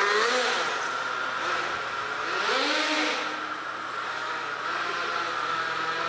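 Small nitro glow engine of a 1/10 2WD RC drift car running at high revs with a high-pitched whine. Its pitch rises twice as the throttle is opened, about a quarter second and about two and a half seconds in.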